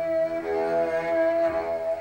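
Free-improvised jazz: long held notes from a trumpet over a bowed double bass, one high note sustained steadily across the whole passage.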